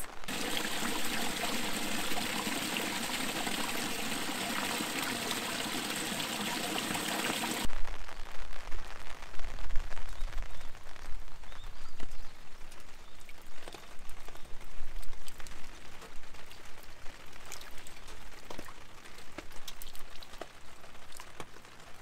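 Steady rain pattering on an umbrella overhead. About eight seconds in, it cuts to rainwater pouring from a plastic downspout into a concrete gutter channel, with irregular drips and splashes over a low rumble.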